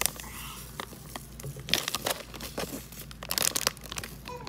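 Thin plastic packet crinkling in irregular crackles as powder is shaken out of it into a stainless steel bowl.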